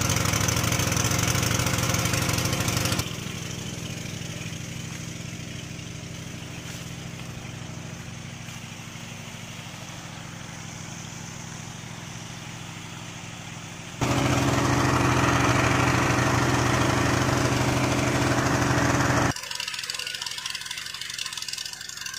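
Small engine-driven water pump running steadily while pumping out a pond. It is loud for the first few seconds, drops sharply to a lower level for about ten seconds, jumps back up at about fourteen seconds, and drops again near the end.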